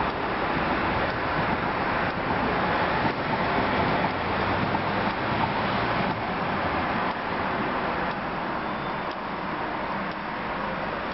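Steady road traffic noise, an even rush of passing cars.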